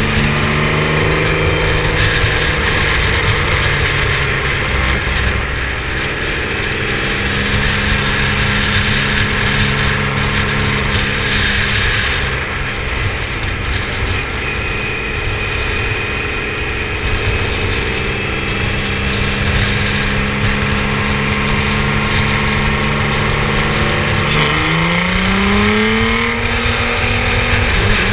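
Formula Yas 3000 single-seater race car engine running hard and steadily at speed. About four seconds before the end the revs dip, then climb again.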